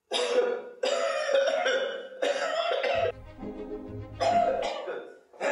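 A man coughing hard in a fit of about four long, rough coughs, the last one a little apart from the rest. Background music comes in about three seconds in.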